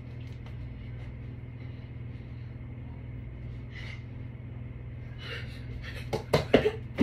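Steady low hum of a running ceiling fan, then near the end a quick cluster of thumps and rustling as a child lands on a bed mattress from a flip attempt.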